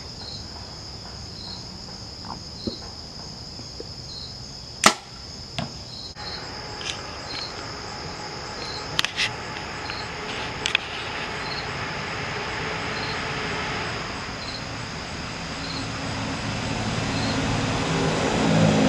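A compound bow firing, one sharp snap of the release about five seconds in, with a few lighter clicks later. Behind it, insects chirp steadily in a high, evenly pulsing rhythm.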